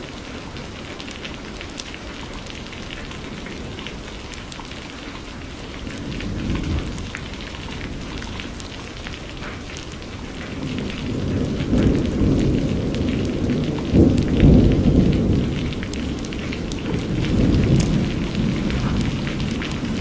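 Steady rain falling, with a low rolling rumble of thunder that builds in the second half, peaks a little past the middle and then eases off.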